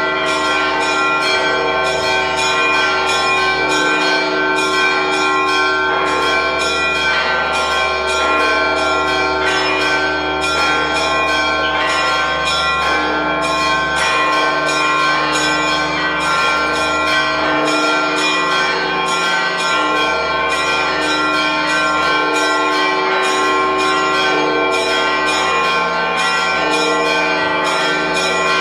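Church bells ringing a continuous peal of quick, repeated strikes, their tones overlapping without a break: the celebratory ringing that announces the Holy Fire has come out of the tomb.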